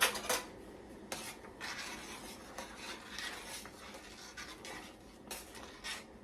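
Kitchen handling sounds: a few light knocks of utensils or dishes near the start and near the end, with rubbing and scraping in between.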